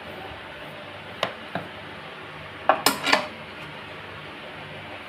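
A metal spoon knocking against a plastic food container while pressing down fried vermicelli: two single light knocks, then a quick run of about four sharper knocks around three seconds in.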